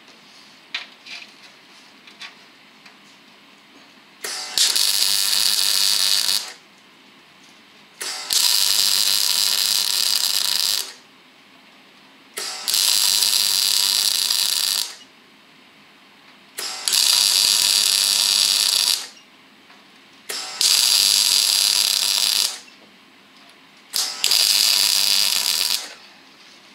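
Arc welding new steel outriggers onto the chassis frame of a 1972 Triumph GT6, laid down as six short runs of about two seconds each. Each run is a steady crackling hiss, and there is a brief quiet gap of about two seconds between runs.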